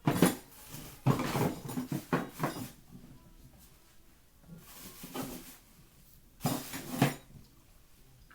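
Eating cornstarch from a plastic squeeze bottle: four short bursts of crackly, rustling noise with quiet gaps between them.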